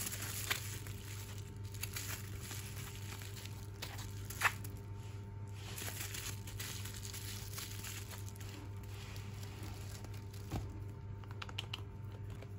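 Bubble wrap being pulled off a package and crinkled by hand, a continuous crackly rustle with scattered clicks and one sharp snap about four and a half seconds in.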